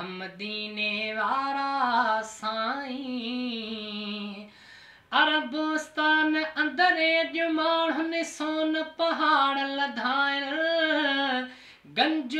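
A man singing a Sindhi naat (devotional poem in praise of the Prophet) solo and unaccompanied, in long drawn-out phrases with ornamented bends in pitch. He breaks off briefly about four and a half seconds in, and again near the end.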